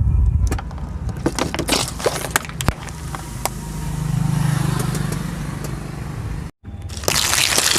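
Car tyre rolling over and crushing brittle objects: a run of sharp cracks and crunches over the car's low engine sound. After a brief cut, a loud crunching burst comes about seven seconds in.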